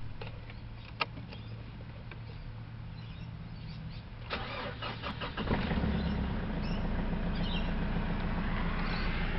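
Mitsubishi Triton's 4D56 four-cylinder turbo diesel being started with the key. A click comes about a second in, the starter cranks briefly a little after four seconds, and the engine catches and settles into a steady idle.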